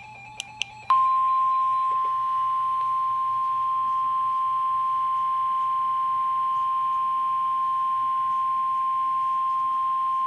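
Emergency Alert System warning alarm tone: one steady high beep near 1 kHz that starts about a second in and holds for nearly ten seconds, the 1050 Hz tone NOAA Weather Radio sends ahead of a severe thunderstorm warning. A few short clicks come just before it.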